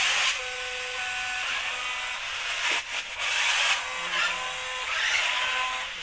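Small electric drive motors and plastic gears of a remote-control stunt car whining as it drives and turns on a tiled floor. The whine changes pitch and swells in spurts, loudest at the start, around three seconds in and around five seconds in.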